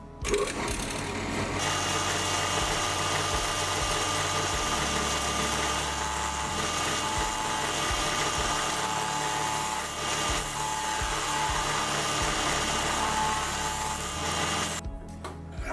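A power tool running steadily with a hissing whir over background music; it starts just after the beginning and cuts off sharply near the end.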